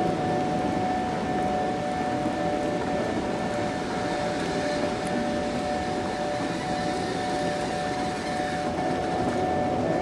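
Toei 10-000 series electric train rolling slowly past: a steady rumble of the cars on the track, with a few steady humming tones that hold one pitch.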